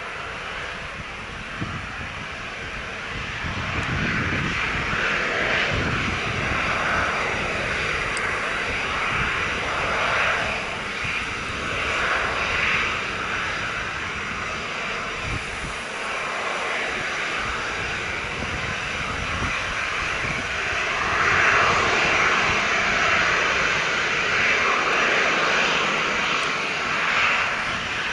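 Boeing 737-900ER's twin CFM56-7B turbofan engines at taxi power, a continuous jet whine and rushing hiss. It grows louder about four seconds in and swells and fades in waves as the airliner taxies close by.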